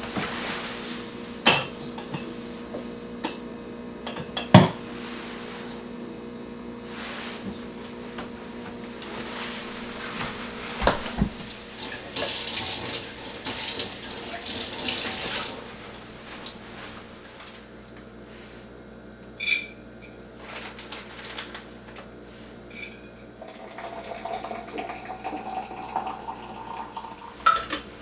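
Kitchen work sounds: scattered knocks and clinks of cabinet doors, dishes and utensils, with a kitchen tap running into a stainless steel sink for a few seconds about twelve seconds in.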